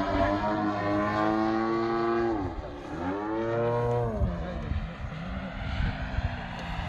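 Radio-controlled model airplane's motor and propeller running in flight. The pitch drops about two and a half seconds in, climbs back and falls again at about four seconds, and the sound grows fainter near the end.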